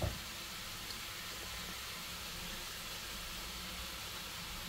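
Chicken hearts frying in a pan: an even, steady sizzle.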